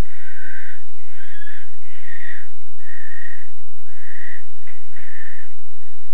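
Barn owls hissing: a run of wheezy hisses, each about half a second long, coming about once a second.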